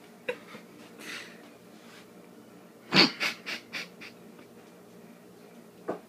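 A person's sharp breathing: a run of five quick puffs of breath about three seconds in, the first the loudest, with a few fainter breaths around it.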